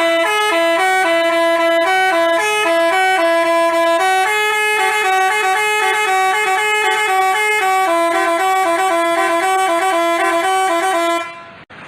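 Telolet basuri multi-tone horn playing a quick melody of short stepped notes, several tones sounding together. It cuts off abruptly near the end.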